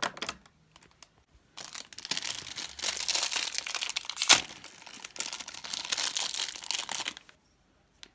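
Plastic blind-bag wrapper of a mini collectable being torn open and crinkled by hand. The crinkling starts about a second and a half in, runs for several seconds, and has one sharp rip about four seconds in.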